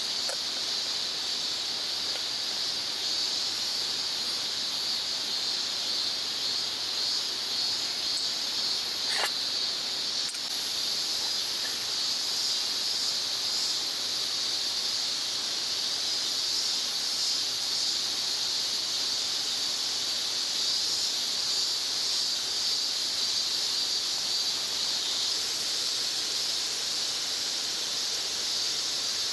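Steady high-pitched insect chorus, even throughout, with one brief click about nine seconds in.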